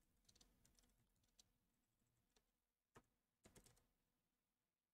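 Very faint keystrokes on a computer keyboard, a few scattered clicks in short runs, as a terminal command is typed.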